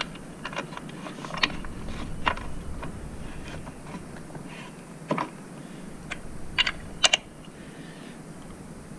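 Scattered metal clicks and clinks of hand tools and bolts as mounting bolts are fitted and tightened at a motorcycle's engine-to-frame mount, with a few sharper clinks past the middle.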